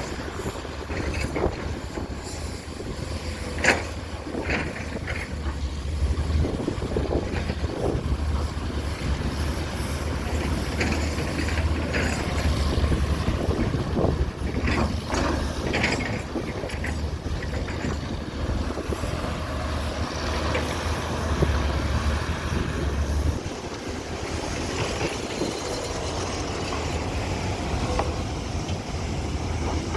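Hydraulic excavator diesel engines running, with scattered short metallic clanks and knocks. The low engine drone eases off about three-quarters of the way through.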